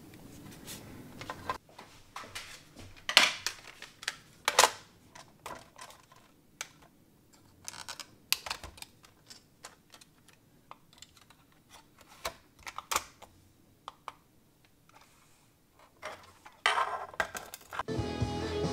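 Sparse sharp plastic clicks and knocks from handling a Panasonic RQ-DR9 portable DCC recorder as its cassette lid is opened and shut. Music starts suddenly near the end.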